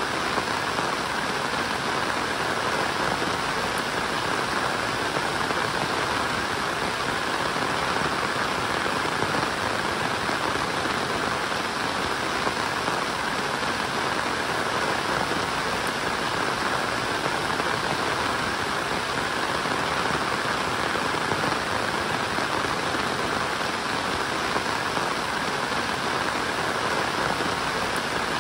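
Steady rainfall, an even hiss with no breaks or single loud events.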